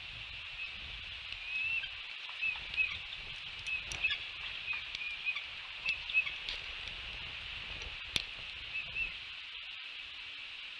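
Bald eagle eaglets peeping in short, soft chirps while being fed, over a steady high hiss. A few sharp clicks come through, the loudest about eight seconds in.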